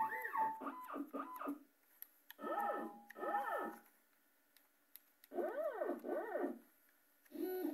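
Stepper motors on a home-built five-axis CNC test board, a NEMA 23 and four NEMA 17s, being jogged one after another. Each move is a whining tone that rises in pitch and falls again, in several separate bursts with short pauses between.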